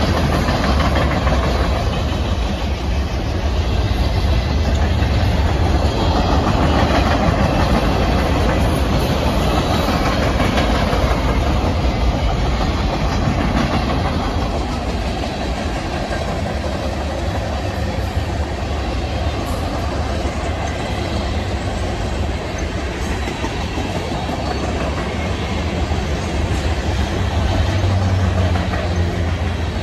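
Mixed freight train's cars rolling past at close range: steel wheels running on the rails, a loud, steady noise.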